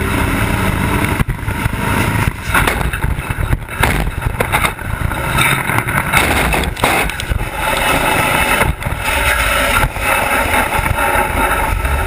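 Onboard sound from inside a racing truck's cab during a start-line crash: the diesel engine and cab rattle run under repeated loud bangs and crashes as the truck is launched over another truck's wheel, lands and strikes the concrete wall, then slides on.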